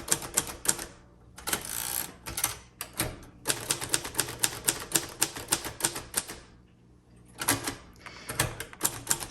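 Keys of a 1953 Royal Quiet Deluxe manual typewriter being typed in quick bursts of sharp type-bar strikes, several a second, with two short pauses.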